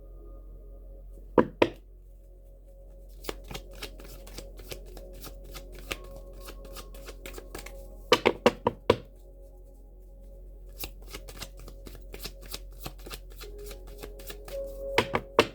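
Tarot deck being shuffled by hand: runs of quick card flicks and snaps, with a few louder slaps about a second in, around the middle and near the end. Soft background music with steady held tones plays underneath.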